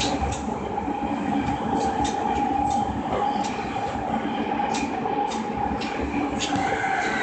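Interior of a Rinkai Line electric commuter train running: a steady whine over the rumble of the running gear, with sharp wheel clicks every so often. A second, higher tone joins near the end.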